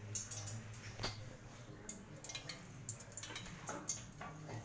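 Faint, irregular ticks and crackles: mustard seeds starting to pop in oil heating in an aluminium pot, with a sharper click about a second in, over a steady low hum.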